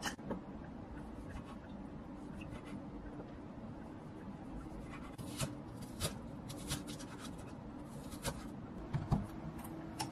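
Scattered light taps and clicks of small objects being handled, over a steady low hum; the taps come more often in the second half.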